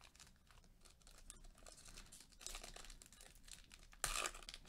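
Trading-card pack wrapper being torn open and crinkled by hand: a run of faint crackles, with a louder burst of crinkling near the end.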